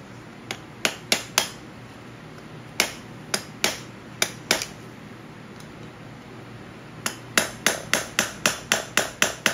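Hammer tapping the end of a screwdriver wedged behind the old outer seal in an LMTV front axle spindle, to drive it loose: sharp taps in a few scattered groups, then a quick steady run of about four taps a second from about seven seconds in.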